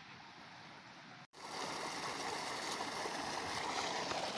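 Tubewell outlet pipe gushing water into a concrete tank: a steady rushing splash. It starts abruptly about a second in, after a faint quiet stretch.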